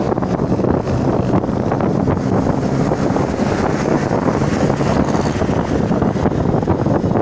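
Steady wind rush buffeting the microphone of a camera on a moving motorcycle, mixed with the motorcycle's engine and road noise.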